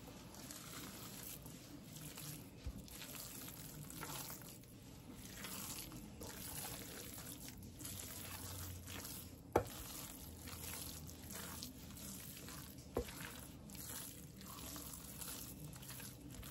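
Wooden spoon stirring moist oyster and sausage dressing in a stainless steel bowl: a faint, wet mixing sound, with three light knocks of the spoon against the bowl, the sharpest about ten seconds in.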